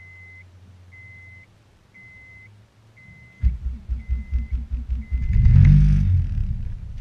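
A car's warning chime beeps about once a second over a faint hum. About three and a half seconds in, the Honda Insight's swapped-in K20 four-cylinder engine suddenly starts up with a loud, lumpy idle. It is revved up briefly about two seconds later.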